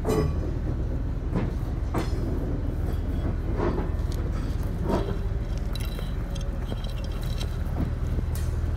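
Vintage GE diesel locomotive running at idle, a steady low drone, with a handful of sharp metallic clinks and knocks a second or so apart.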